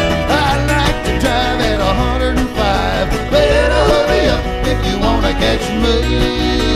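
Country-style background music with plucked strings over a steady bass line, carrying a wavering melody.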